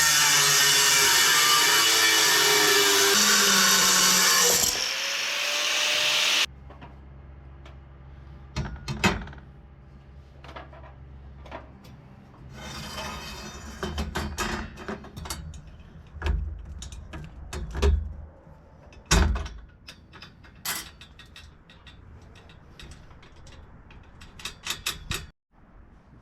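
A power tool working steel bracket stock runs loudly for about six seconds, then cuts off suddenly. After that come scattered sharp knocks and clanks of metal being handled over a low steady hum.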